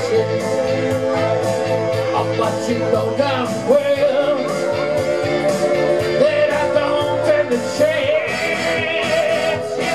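Live rock band playing, with a long held, wavering lead line over a steady beat.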